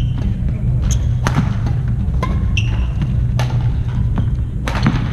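Hammer blows: about six irregular strikes, some leaving a brief ringing tone, over a steady low hum.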